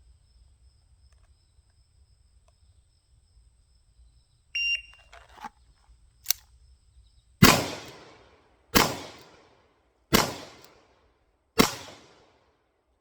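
A shot timer beeps once, then a single action revolver is fired four times, about a shot every second and a half, each report ringing out and fading.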